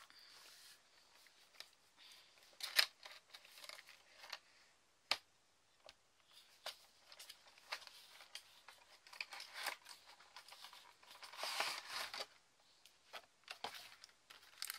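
A cardboard figure box and its packaging being handled off-camera: scattered clicks, taps and rustles, the sharpest click about three seconds in and a longer rustle about twelve seconds in.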